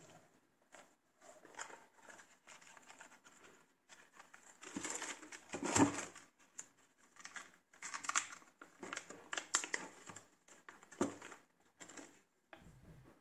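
Tissue paper crinkling and rustling in irregular bursts as a sneaker is handled in its shoe box, loudest about halfway through.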